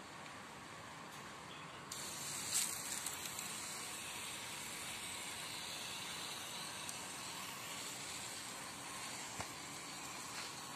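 Hand sprayer misting a diluted insecticide onto a shrub's leaves: a steady hiss of spray that starts suddenly about two seconds in.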